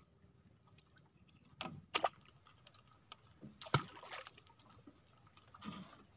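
Light water splashes and sloshing at the side of a small outrigger fishing boat as a handline is paid back into the water: a few separate splashes, with a sharp knock about midway.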